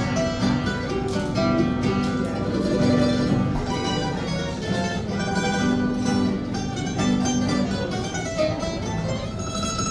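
Two acoustic guitars and a mandolin playing a traditional Italian tune together.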